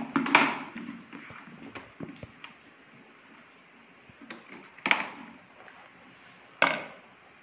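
Sharp plastic clacks as the motor head of an Amazon Basics wet-and-dry vacuum cleaner is unclipped and lifted off its drum: one just after the start and two more about five and six and a half seconds in, with quiet handling rustle between.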